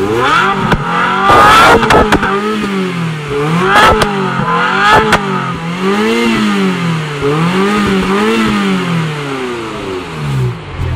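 Ferrari F355 Berlinetta's V8 revved repeatedly while parked, pitch rising and falling in a series of quick blips before settling back toward idle. A few sharp cracks come at the loudest revs in the first few seconds.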